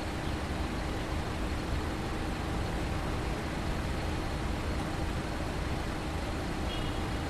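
Steady roadside traffic noise from a high-speed road: a continuous wash of passing cars with no single vehicle standing out.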